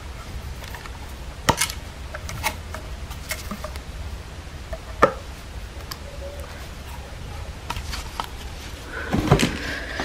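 A handful of separate light clicks and knocks, a few more near the end, as the plastic parts of a cordless vacuum cleaner are handled and taken out of their cardboard packaging, over a low steady hum.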